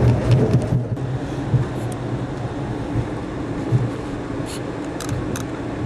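Passenger train running on the rails, heard from aboard the coach: a steady rumble with a low hum. The sound dips briefly about a second in, and a few short high-pitched ticks come near the end.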